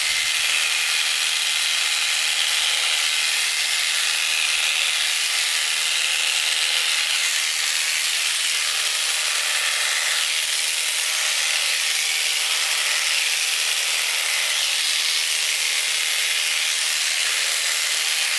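Electric shearing handpiece running steadily as it cuts the fleece off a cashmere goat: a constant, high, hiss-like buzz with no breaks.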